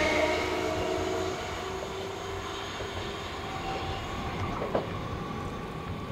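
NS Sprinter Light Train electric multiple unit pulling away, the whine of its traction motors fading over the first second or two as it recedes, leaving a low rumble of the train on the track. There is a single faint click about three-quarters of the way through.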